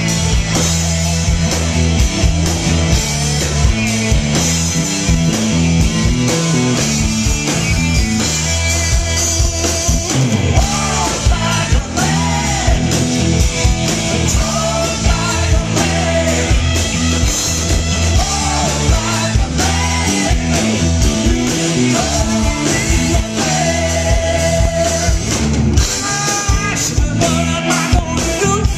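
A live rock band playing loudly: electric guitar, bass guitar, drum kit and keyboard, with a man singing lead from about ten seconds in, heard from the crowd.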